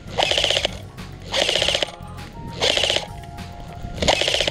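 Airsoft light machine gun firing four short full-auto bursts, each about half a second long and roughly a second apart: a rapid mechanical rattle.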